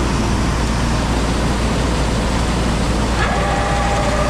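Pickup truck running, a steady rumble and hiss; about three seconds in a steady whine with several pitches joins it.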